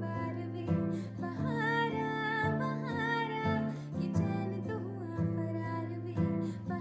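Background music with plucked guitar and a melodic vocal line.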